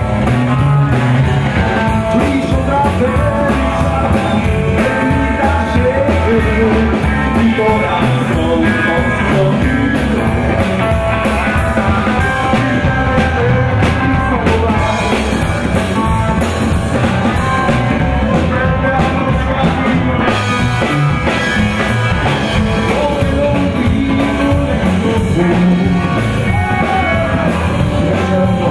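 Live rockabilly band playing: a male lead vocal over electric guitar, upright bass and a drum kit, at a steady loud level.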